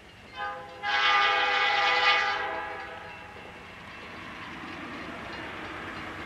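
Diesel locomotive air horn: a brief toot, then one long blast that fades out. A rumbling train noise follows and slowly grows louder as the train approaches.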